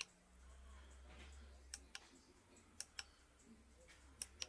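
A few faint, sharp clicks, mostly in close pairs, from small plastic parts being handled: a power bank and its cable plug being fitted to power the soldered light.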